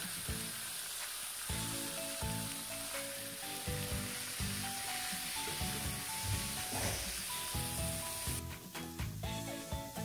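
Marinated meat strips sizzling in a hot frying pan with sliced onions and garlic as they are stirred with a wooden spatula. Background music with a stepping melody comes in about a second and a half in.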